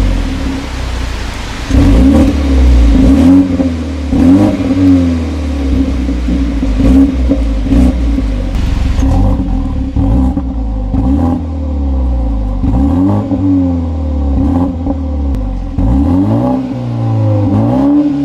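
BMW 330i (G20) 2.0-litre turbocharged four-cylinder engine idling with its exhaust close by, blipped again and again: short revs that rise and fall back to idle, often two in quick succession.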